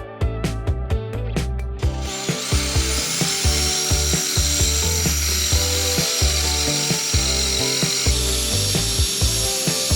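Background music with a steady beat. From about two seconds in, a power tool runs over it with a steady high whine and hiss, which changes a little near the end.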